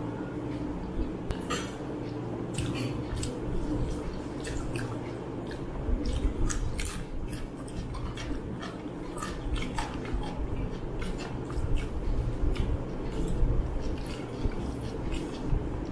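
Eating by hand: fingers mixing rice and mutton curry on plates, with chewing and many small irregular clicks and smacks of fingers and food against the plates, over a steady low hum.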